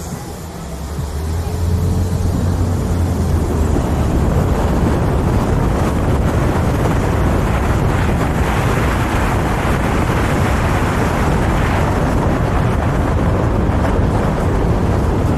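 Wind rushing over a camera microphone held outside the window of a moving car, mixed with the car's road and engine noise. The rushing grows louder about two seconds in and then holds steady.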